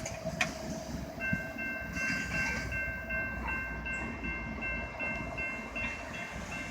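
A freight train running past with a low steady rumble. From about a second in, a high-pitched electronic ringing repeats about three times a second, typical of a grade-crossing warning bell sounding while the train moves through.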